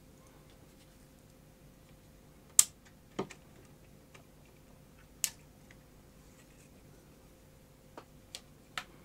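About six sharp clicks and light knocks as the control circuit board is unclipped and lifted off a Panasonic NV-HS1000 VHS deck mechanism. The loudest click comes a little over two and a half seconds in, with three more in quick succession near the end.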